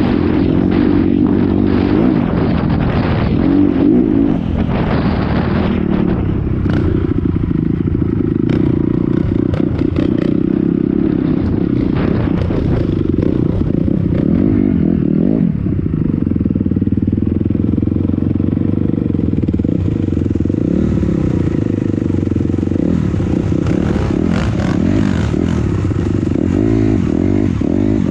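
Honda dirt bike engine running and revving up and down as it rides over a rough, stony trail, with scattered knocks and rattles from the bike.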